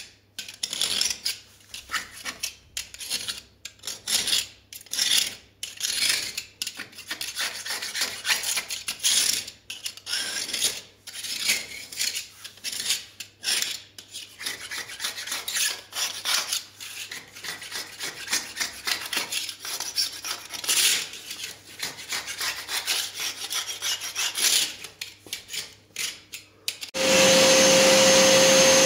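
Hand grout scraper raking old cement grout out of a floor-tile joint in quick, repeated scratchy strokes. About 27 s in, a vacuum cleaner switches on and runs steadily, louder than the scraping.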